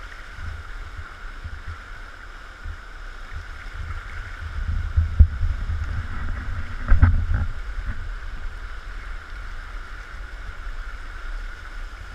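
Fast river water rushing, with wind rumbling on the microphone and a faint steady high hum. There are two louder bumps about five and seven seconds in.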